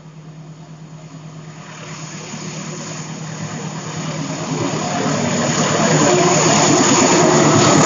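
Diesel-hauled passenger train approaching on a steel truss railway bridge. Its engine and wheel rumble grow steadily louder, levelling off about six seconds in as it nears.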